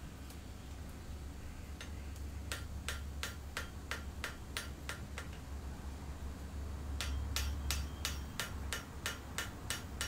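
Ball-pein hammer striking a thin, red-hot 8 mm bar on an anvil in a steady run of light metal-on-metal blows, drawing the bar down. The blows start a couple of seconds in at about two to three a second and come faster from about seven seconds in.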